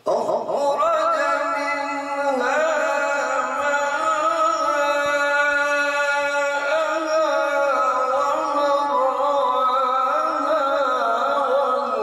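Man's unaccompanied melodic Qur'an recitation (tilawat) in tajweed style: one long drawn-out phrase of held, wavering notes with ornaments.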